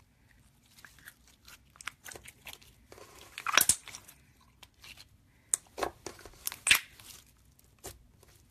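Slime being squeezed and poked by hand, making irregular sticky crackles and clicking pops. The loudest bursts come about three and a half seconds in and again near seven seconds.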